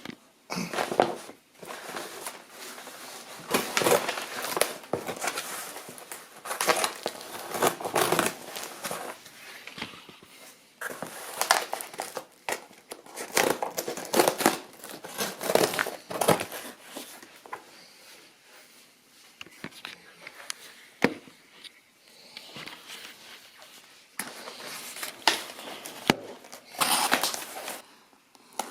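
Kit packaging being handled: crinkling and rustling of wrapping in irregular bursts, with a few sharp clicks.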